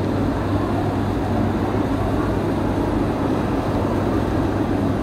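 Busy city street ambience: a steady low rumble of traffic and street noise, with no distinct single events.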